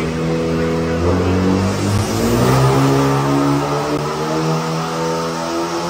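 Kia K5's engine running hard on a chassis dynamometer, with a steady pitched engine note that changes pitch abruptly about one second in and again about two seconds in.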